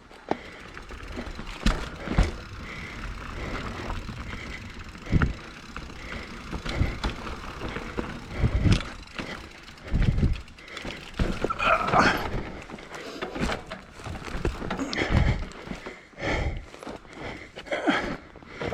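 Mountain bike riding down a loose, dry, rocky trail: tyres grinding over dirt and rocks, with irregular knocks and rattles from the bike going over bumps.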